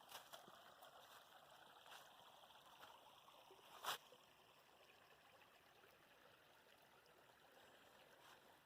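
Faint trickle of a small creek, with a few short crunches of footsteps on dry leaves and twigs, the sharpest about four seconds in.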